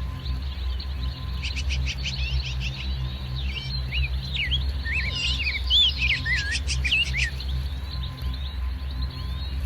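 Birds chirping and whistling in a lively burst of quick, rising and falling calls through the middle few seconds, over a steady low hum.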